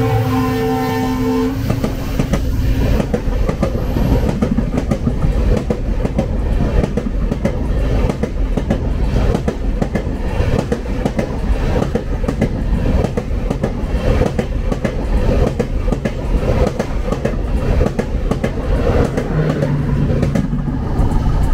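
A train horn sounds for about a second and a half, then a train rolls past with loud rumbling and the rapid clatter of its wheels over the rail joints.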